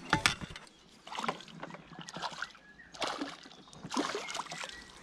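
Water splashing in several short bursts about a second apart as a mesh landing net is swept through the water to scoop up a hooked perch.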